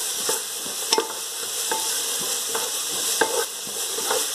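Chopped onions and green chillies sizzling in hot oil in a pan as they are sautéed, with a spatula stirring them and tapping or scraping the pan a few times.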